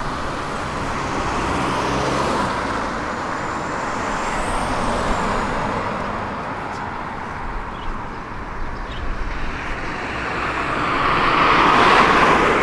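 Road traffic passing on a city street: a steady wash of vehicle and tyre noise, with one vehicle swelling past and growing loudest near the end.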